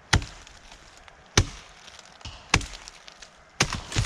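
Axe blows chopping into a small tree trunk: five sharp strikes into wood, roughly one a second, the last two in quick succession near the end.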